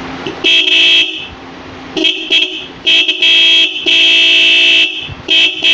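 A pair of Seger car horns sounding together as a steady two-tone blare, switched on and off in a string of blasts, some short beeps and some about a second long. Very loud.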